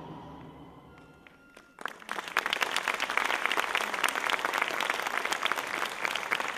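The last notes of the dance music fade out, then from about two seconds in an audience applauds, a dense steady clapping.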